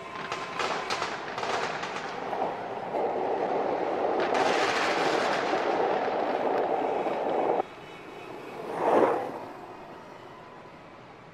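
Sound effects for an animated logo intro. A run of crackling hits over a dense rushing noise swells about four seconds in and cuts off abruptly near eight seconds, then a single whoosh rises and fades.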